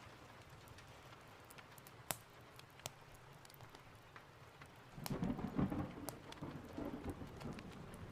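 Steady rain with a few scattered sharp pops, and a low thunder rumble that swells about five seconds in and rolls on to the end.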